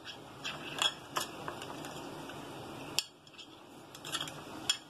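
Spoon stirring a thin cornflour and maida slurry in a glass bowl, with a few sharp clinks of the spoon against the glass. It is being mixed smooth so that no lumps remain.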